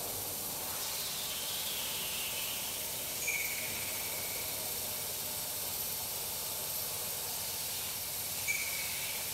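CNC milling machine cutting an aluminium plate under flood coolant: a steady hiss of coolant spray, with a brief higher tone about three seconds in and again near the end. This is a light finishing pass rerun with coolant to wash the chips away so they don't scour the surface.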